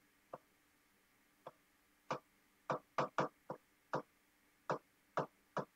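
Marker pen clicking against a whiteboard while writing: about a dozen short, sharp, irregular clicks, mostly after the first two seconds.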